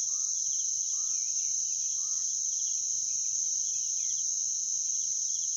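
Crickets chirring in a steady, unbroken high chorus. Short falling chirps sound about once a second over the first half.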